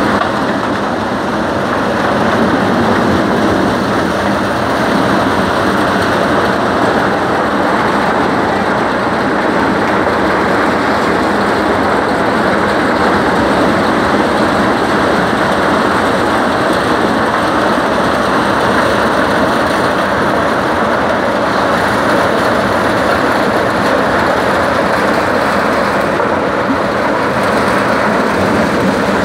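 Tractor-driven maize thresher running steadily as cobs are fed in: a loud, even mechanical din from the threshing drum, together with the New Holland 3030 tractor's diesel engine powering it.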